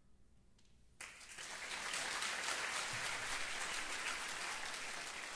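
Audience applause breaking out suddenly about a second in after a near-silent pause, swelling quickly and then holding steady.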